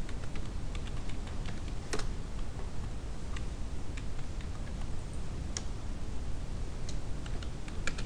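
Computer keyboard keystrokes as a command line is typed: scattered, irregular clicks over a steady low background noise.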